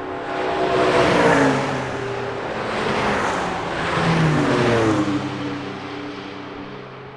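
Cars passing by at speed one after another, about three in quick succession, each engine's pitch dropping as it goes past, then fading away.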